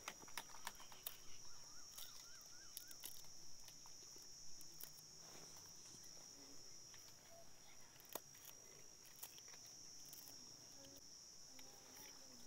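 Faint, steady high-pitched insect chirring, with scattered soft clicks and a short warbling call a second or two in.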